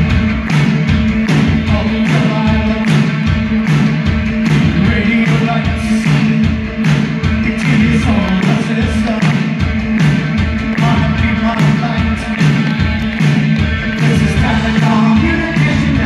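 Live rock band playing through a concert PA: a steady drum beat and bass under electric guitar, with a lead singer's voice.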